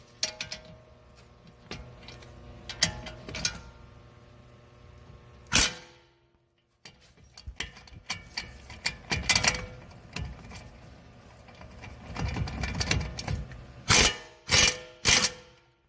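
Hand tools working on metal suspension parts: irregular wrench clicks and metal knocks, with a run of quick clicking around the middle and a few sharp clanks near the end.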